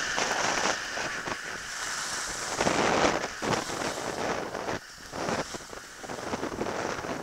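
Wind rushing over the microphone as a steady hiss, swelling about three seconds in and again near five seconds.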